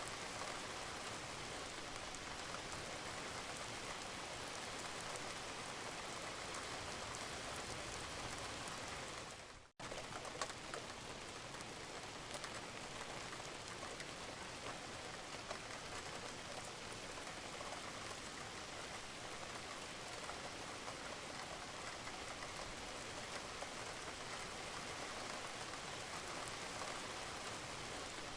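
Steady rain falling on a roof, with scattered drips. About ten seconds in the rain fades out almost to silence for a moment, then cuts straight back in.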